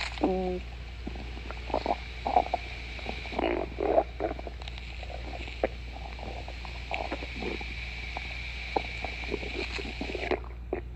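A person's stomach growling: a string of irregular gurgles and rumbles, with a short pitched squeal just after the start.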